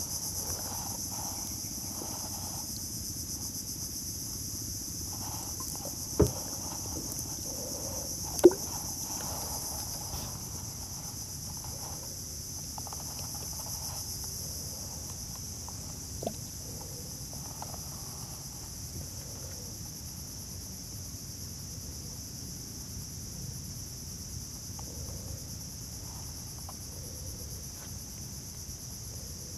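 Steady, high-pitched buzzing chorus of insects. Two sharp knocks cut through it about six and eight seconds in, the second the loudest sound, and a fainter click follows a while later.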